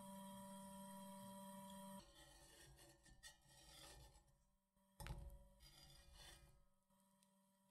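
Slotted metal turner scraping under mini pancakes on a nonstick frying pan and flipping them, with a sharp tap about five seconds in as one lands back on the pan. A steady hum runs for the first two seconds, then stops.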